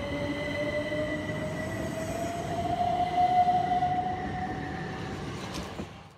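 Class 377 Electrostar electric multiple unit pulling away from the platform, its traction motor whine rising slowly in pitch as it accelerates, over a steady high tone and wheel rumble. The sound fades and cuts off near the end.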